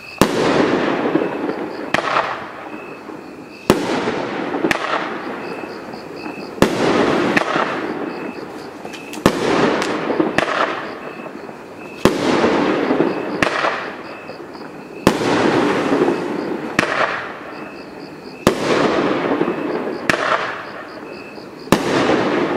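Consumer firework cake (Pyro Diablo Noise Maker, 200-gram, 12 shots) firing shot after shot. Each shot is a sharp bang trailed by a second or two of noisy fizzing, with a new shot about every one and a half to two seconds.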